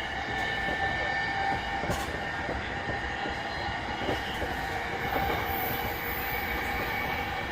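Running sound of a JR E233-3000 series electric multiple unit, heard from inside the car while it runs between stations. It is a steady mix of wheel-on-rail noise and motor hum, with a few faint rail-joint clicks.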